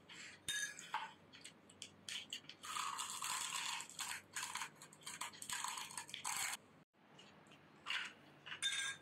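Crisp, hollow panipuri (gupchup) shells being cracked open with the thumb and crunched while eating, in irregular crackly bursts.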